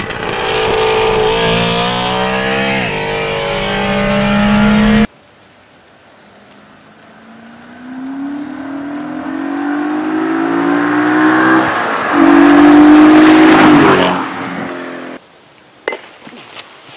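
Car engines at full throttle, climbing in pitch through the gears. The first is heard from alongside, with two upshifts, and cuts off abruptly. The second approaches from a distance, growing louder, shifts once and is loudest as it passes close.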